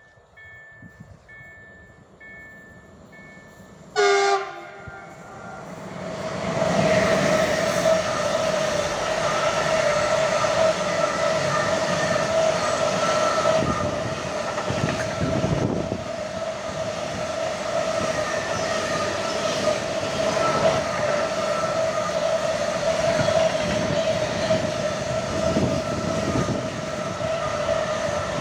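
Siemens Vectron (E193) electric locomotive gives a short horn blast about four seconds in. Its intermodal freight train of tank-container wagons then passes close at speed, with a steady rumble and clatter of wheels on rail and a steady ringing tone.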